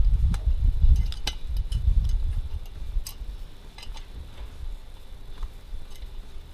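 Scattered light metallic clicks and ticks of an allen wrench and metal windscreen parts being worked as a bolt is fitted, over low rumbling handling noise that fades after the first couple of seconds.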